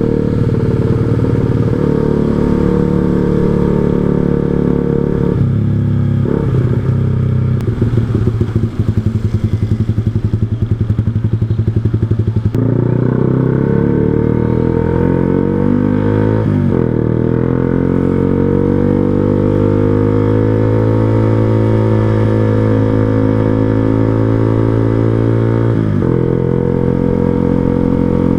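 Yamaha R15 V2's 150 cc single-cylinder four-stroke engine running through an aftermarket short Proliner TR1R silencer on a 3Tech Racing Evolution header while riding. Its note pulses unevenly for a few seconds off the throttle, then the revs climb steadily under acceleration, dropping at a gear change about sixteen seconds in and again near the end.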